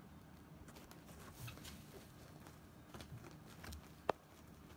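Faint rustling and scuffing of a cat rolling and squirming on a woven mat and rug, with scattered light clicks and one sharper click about four seconds in.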